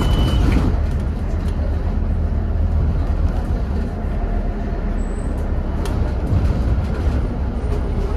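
Scania N230UD double-decker bus running along the road, heard from inside the cabin: a steady low engine rumble under road and body noise, with a few faint ticks.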